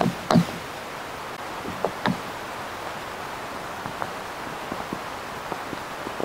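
Steady hiss from a microphone lowered down a borehole, with a sharp knock just after the start, two more around two seconds in, and faint scattered ticks after that. The uploaders take such knocks for tunnel-digging work underground.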